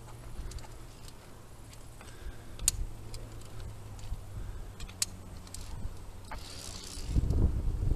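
A few sharp clicks from via ferrata climbing gear, carabiners knocking on the steel safety cable, over rustling from the body-worn camera. The two loudest clicks come about a third and two-thirds of the way through, and wind starts buffeting the microphone near the end.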